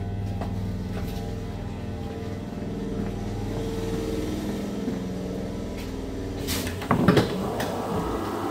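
Steady electrical hum of a Class 323 electric multiple unit, heard from inside the carriage, with a short loud burst of knocks and clatter about seven seconds in.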